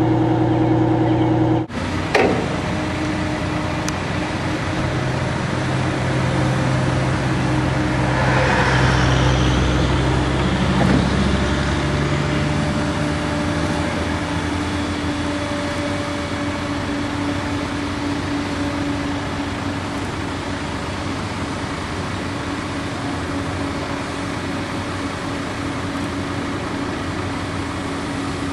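A vehicle engine idles, cut off abruptly about two seconds in. A truck-mounted crane's engine then runs steadily while it holds a large steel tank on its hook. The engine swells louder for a few seconds about eight to eleven seconds in, then settles.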